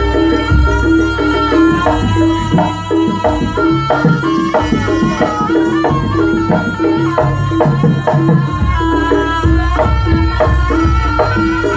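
Jaranan accompaniment music: quick hand-drum strokes over a steady pattern of repeated pitched percussion notes and a held, high melody line, playing continuously.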